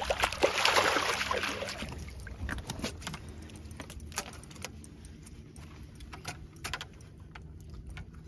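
Water splashing as a striped bass is swung out of the river, then scattered sharp knocks and taps as the fish flops on the boat's deck.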